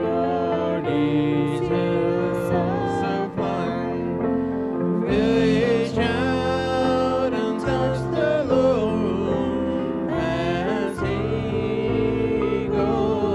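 Gospel music with singing over instrumental accompaniment.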